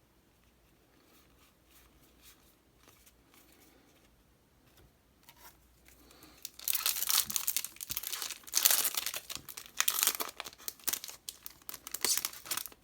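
Foil booster-pack wrapper crinkling and being torn open, starting about six and a half seconds in after a few seconds of faint handling.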